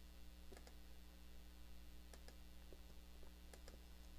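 Near silence with a few faint computer-mouse clicks, two of them in quick pairs, over a low steady hum.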